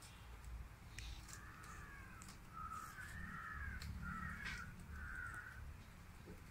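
A bird calling: a run of about five short arching calls, starting about a second in and stopping shortly before the end.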